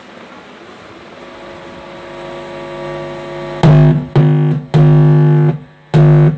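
Music played loudly through a repaired Stranger PBT 501 amplifier on test. A low hiss grows louder for about three and a half seconds, then the music comes in and cuts out abruptly several times in short stretches.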